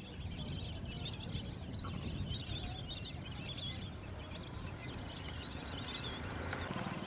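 A large flock of waterfowl on open water calling, with many overlapping short, wavering chirps and squeaks, over a low steady rumble.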